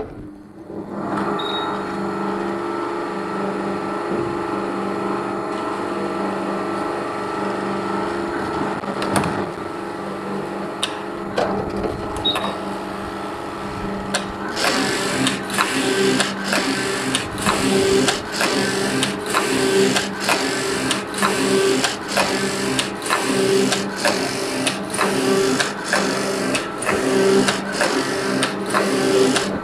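Computerized flat knitting machine running, its carriage travelling along the needle bed with a steady mechanical hum. About halfway through a regular clatter starts, roughly one and a half strokes a second.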